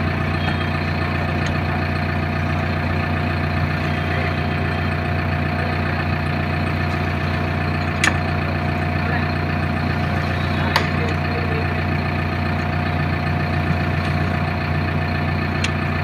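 Engine idling steadily, with two sharp metal clinks, one about halfway through and one about three seconds later, from a socket wrench working the bolts of an excavator bucket's teeth.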